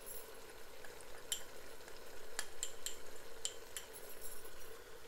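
Mutton pieces sizzling in a pot in their own released juices while being browned, with a handful of sharp crackles and pops.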